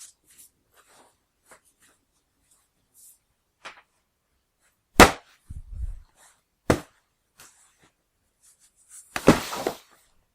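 A string of short impact sound effects: scattered faint clicks, then a loud sharp hit with a low rumble after it about five seconds in, a second sharp hit a little later, and a noisy crackling burst near the end.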